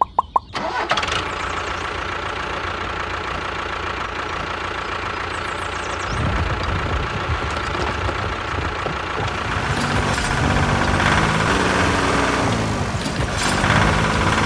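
An engine starting: a few sharp clicks, then it catches abruptly and runs steadily, growing heavier and louder in the second half.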